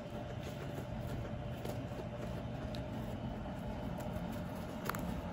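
Guinea pig chewing hay: faint, irregular crunching clicks over a steady low background hum, with one sharper click about five seconds in.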